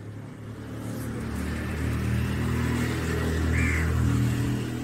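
A motor vehicle's engine running nearby, a low hum that grows louder over the first few seconds and eases off near the end.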